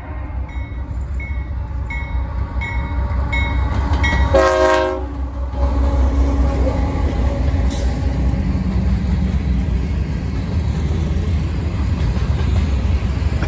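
Union Pacific diesel locomotive hauling a freight train past: a bell rings in steady single strokes for the first few seconds, a short horn blast sounds about four seconds in, and then the locomotive runs close by with a heavy low rumble followed by the freight cars rolling past.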